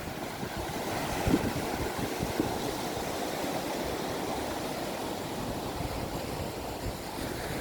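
Steady wind buffeting the microphone over surf washing on the beach, with a faint knock about a second in.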